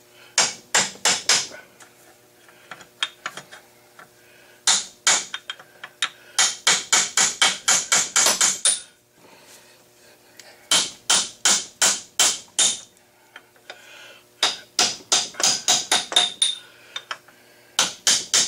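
Hammer striking a steel drift to drive the sleeve off the nose of a Chevy six-cylinder water pump held in a vise. The blows come in quick runs of several, about four or five a second, with short pauses between the runs.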